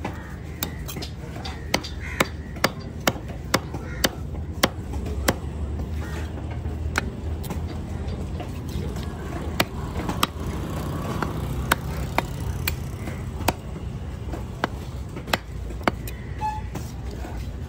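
Knife chopping fish on a wooden chopping block: sharp knocks of the blade through the flesh into the wood. The knocks come in a quick run of about two a second a couple of seconds in, then at uneven intervals, over a steady low background hum.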